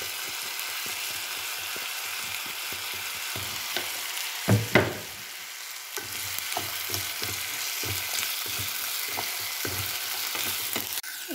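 Washed rice and toasted vermicelli frying in hot oil in a pot, sizzling steadily while a wooden spatula stirs and scrapes through it. Two louder knocks come about four and a half seconds in.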